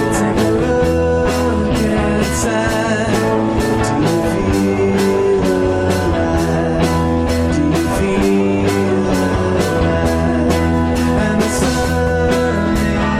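Psychedelic rock song playing, with guitars and drums keeping a steady beat.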